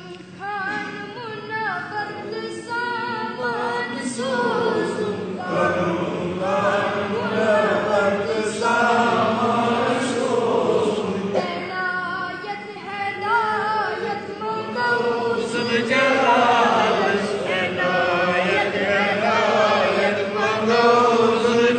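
A child singing a Kashmiri naat, an Islamic devotional hymn, unaccompanied in a chanting melody that runs on in long phrases.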